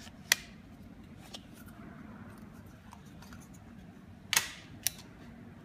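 Sharp clicks of a Kiwifotos lens mount adapter being handled on a camera lens bayonet: one loud click about a third of a second in, a faint one a second later, then a click with a brief rattle near the end followed by one more click.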